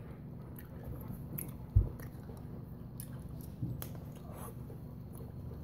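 Close-up chewing of a hard, chewy candy, with small wet clicks from the mouth. A single dull thump about two seconds in is the loudest sound.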